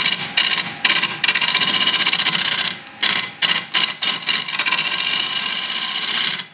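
Bowl gouge cutting across the face of a spinning mango-wood bowl blank on a wood lathe, a continuous shearing, scraping noise of wood being cut, with a short break about three seconds in.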